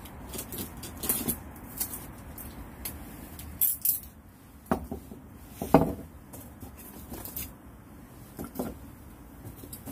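Scattered clicks, clinks and knocks of camping gear being handled, with a louder knock a little before six seconds in.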